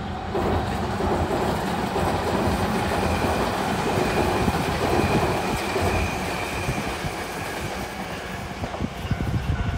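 Tobu 100 series Spacia electric limited-express train passing at speed: a steady rush of wheel and running noise with some rail clatter, swelling a fraction of a second in and easing off near the end as it draws away. Wind buffets the microphone throughout.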